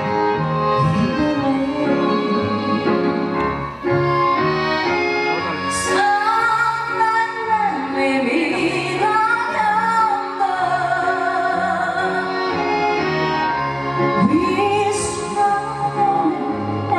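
A woman singing a slow ballad over instrumental accompaniment, holding long notes with vibrato.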